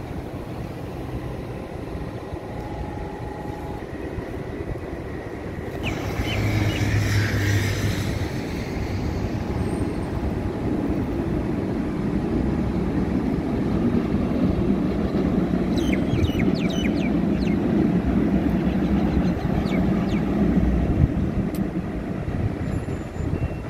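Street traffic with a Dubai Tram running along the road. There is a brief louder rush about six seconds in, and the rumble grows louder through the second half, with a few short high squeaks.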